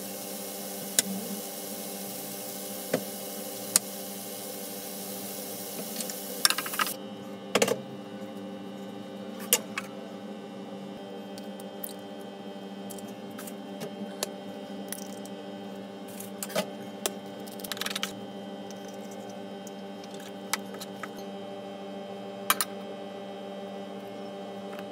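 Home kitchen cooking sounds over a steady hum. For the first several seconds an onion-tomato masala sizzles in a steel kadai, with a metal spoon tapping the pan; the sizzle cuts off suddenly. After that come scattered sharp clicks and taps of eggs being cracked and handled in a bowl.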